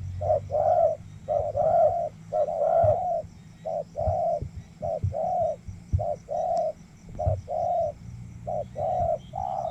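Spotted doves cooing over and over, a steady run of short and longer coos in small groups, with a faint low hum beneath.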